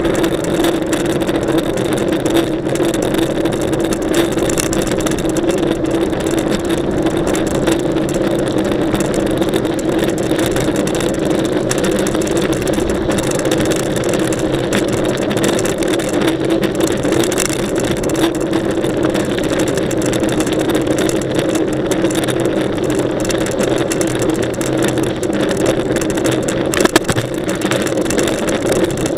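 Steady wind and tyre noise from a mountain bike rolling along, heard through an action camera riding with it, with a hum underneath. One sharp knock comes near the end.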